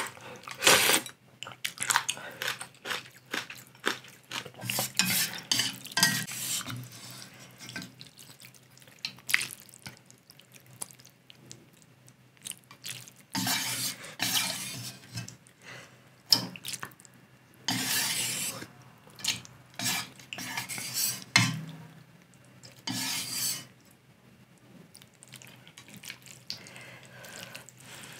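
Close-miked eating sounds of Korean ramen: broth being sipped and noodles slurped in irregular noisy pulls, with wooden chopsticks and a ceramic bowl clicking against the metal pot as noodles are served out.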